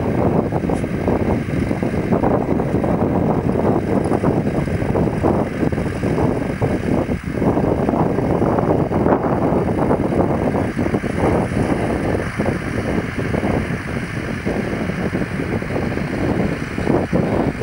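Farm tractor engine running steadily as it pulls a potato planter across the field, heard through a steady low rumble of wind on the microphone.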